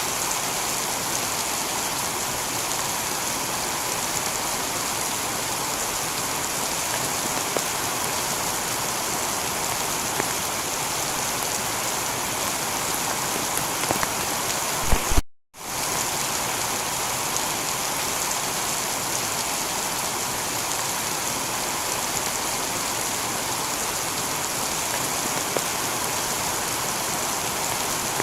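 Steady heavy rain falling on a tiled roof, a dense even hiss full of small drop ticks. About halfway through it cuts out completely for a split second after a couple of small clicks, then carries on unchanged.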